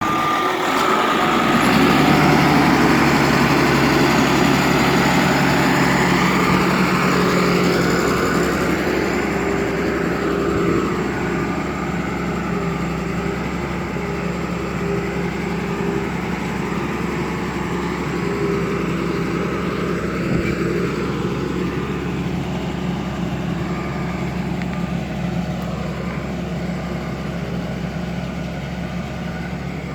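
Bulldozer's diesel engine running steadily, louder over the first several seconds and easing a little after about ten seconds.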